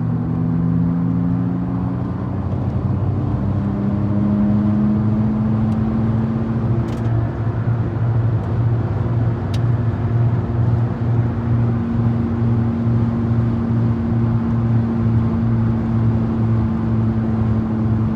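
Loud droning roar of a bad wheel bearing on a 2008 Nissan Altima at about 75–80 mph, heard inside the cabin over road noise. The low hum pulses evenly about twice a second.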